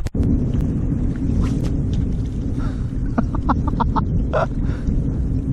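Wind buffeting the microphone, a steady low rumble, with a quick run of short high chirps about three seconds in.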